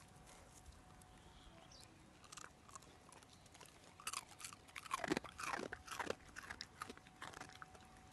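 A dog chewing and crunching close to the microphone: an irregular run of crunchy chews and clicks starting about halfway through.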